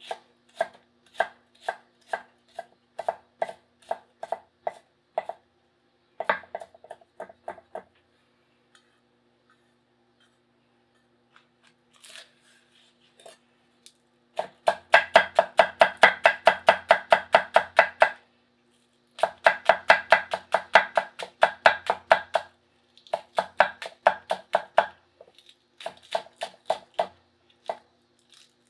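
Chinese chef knife (cleaver) chopping carrot and celery on a wooden cutting board, each stroke a sharp knock of the blade on the board. Steady strokes about twice a second for the first five seconds, a pause of several seconds, then fast chopping in several quick runs.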